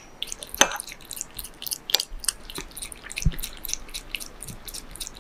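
A cat licking and eating soft food off a spoon: a quick, irregular run of small mouth clicks and licks.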